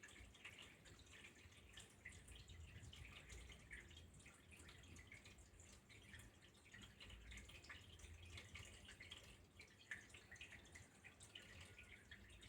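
Faint trickling water, a continuous patter of small irregular drips and splashes.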